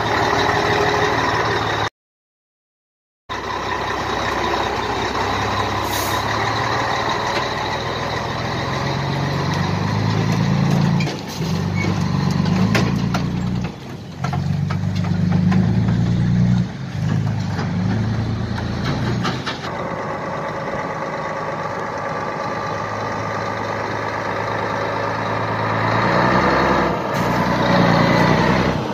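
Scania 113H truck's six-cylinder diesel engine running as the rig drives off. The engine note climbs and drops off briefly three times, as at gear changes, then runs on more evenly.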